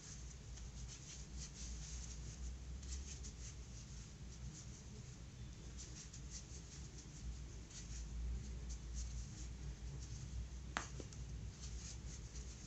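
A crochet hook working single crochet stitches in plush yarn: faint, repeated scratchy rustling strokes over a low steady hum, with one sharp click near the end.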